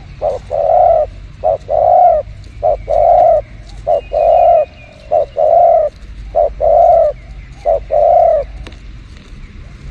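Spotted dove cooing: a two-part call, a short note followed by a longer held coo, repeated seven times at about one per second.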